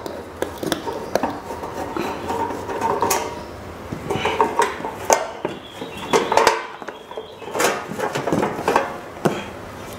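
Irregular metallic clinks, knocks and rattles as the sheet-metal cover of an MMA-120A inverter welder is worked loose and lifted off its case.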